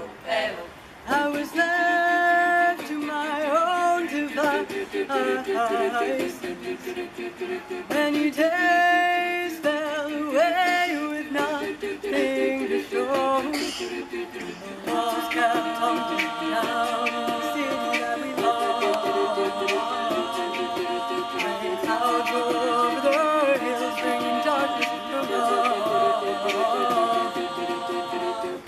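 All-female a cappella group singing in vocal harmony with no instruments, coming in about a second in. About halfway through, the voices fill out into fuller chords of held notes.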